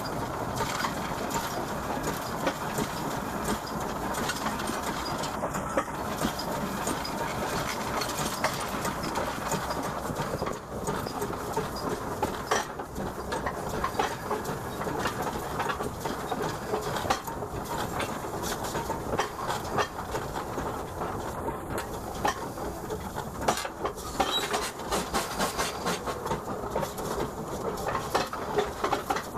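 Porter 1899 0-4-0 steam locomotive hauling passenger cars along the track: a steady running noise peppered with many quick clicks of wheels on the rails.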